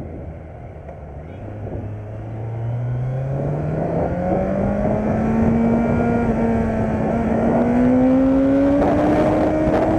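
Kawasaki Z900's 948 cc inline-four engine accelerating, its note climbing steadily and getting louder, levelling off briefly midway, then rising again toward the end.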